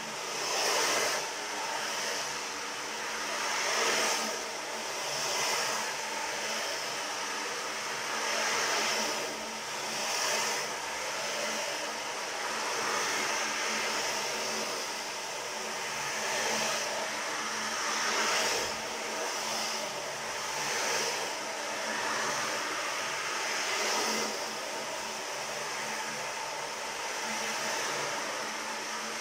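A 32 cm (12-inch) ocean drum tilted slowly back and forth, the beads inside rolling across the head in a continuous surf-like wash that swells and ebbs every couple of seconds.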